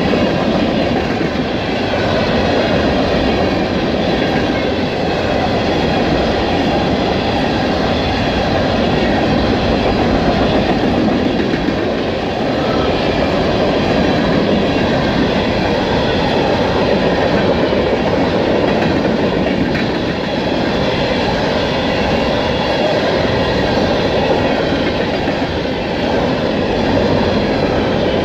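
A freight train's open-top hopper cars rolling past close by, a steady, loud rumble and rattle of steel wheels on the rails.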